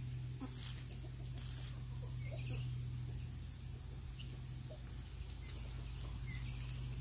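Faint, scattered chicken clucks over a steady low hum.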